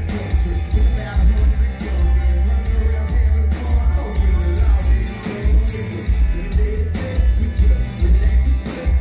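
Live band playing loud country rock: a man singing over electric and acoustic guitars, with heavy booming bass and a driving beat.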